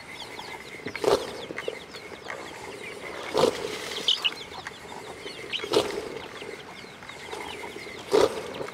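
Wooden rope-spun butter churn (madani) turning back and forth in a clay pot of buttermilk, with a sharp swish at each stroke, four times, about two seconds apart. Birds chirp throughout.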